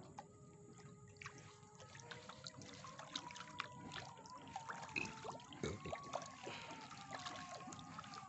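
Dense school of farmed Nile tilapia crowding the surface of a floating net cage: many small, irregular splashes, pops and slurps of water as the fish break the surface.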